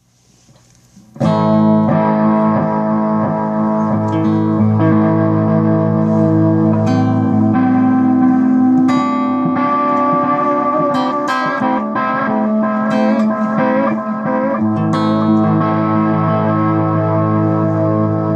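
Electric guitar with humbucking pickups played through a Caroline Kilobyte delay pedal with its attack knob on full: picked notes and chords ringing into one another, starting about a second in.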